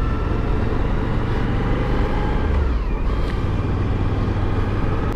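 Motorcycle engine running at steady road speed under wind and road noise, with a brief drop in engine pitch about halfway through.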